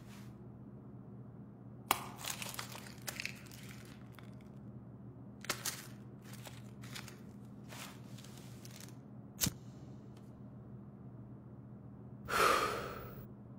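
A cigarette pack being handled: crinkling cellophane and paper about two seconds in, then soft scattered rustles, one sharp click near the middle, and a long breath out near the end, over a faint low hum.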